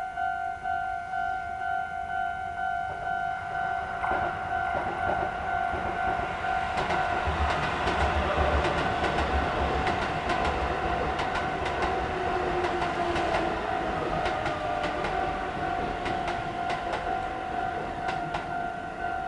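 Japanese level-crossing warning alarm sounding a steady, repeating ding while an eight-car Shin-Keisei 8800 series electric train passes over the crossing. The train builds up about four seconds in, its wheels clattering over rail joints, and is loudest in the middle. It fades away a couple of seconds before the end, leaving the crossing alarm ringing on.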